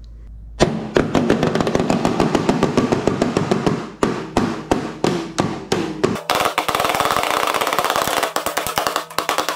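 A pair of toy Doraemon drums beaten rapidly with sticks, starting about half a second in. About six seconds in the strokes speed up into a fast, continuous roll.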